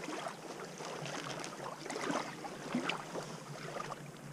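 Faint water lapping and splashing at the edge of a reservoir, with light, scattered small splashes and a little wind.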